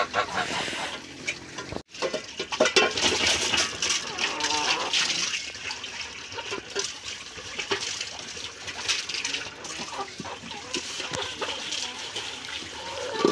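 Water from an outdoor tap splashing into a concrete trough while metal bowls are rinsed and scrubbed by hand, the bowls clinking and scraping against each other.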